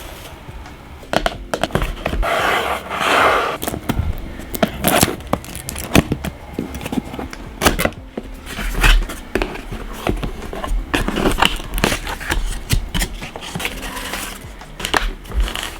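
A camera box and its packaging being handled and opened at close range: irregular scrapes, taps and clicks with short bursts of rustling.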